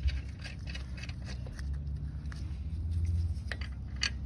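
Scattered light metallic clicks and scrapes of lug nuts being handled and threaded by hand onto the wheel studs, over a low rumble that swells in the middle.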